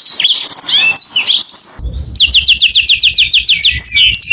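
Male canary singing: a quick run of varied chirps and whistled glides, a short break about two seconds in, then a fast rolling trill of repeated falling notes, about six a second.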